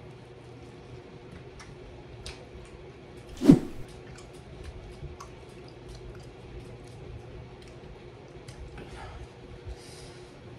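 A single sharp thump about three and a half seconds in, over a low steady hum with small scattered clicks.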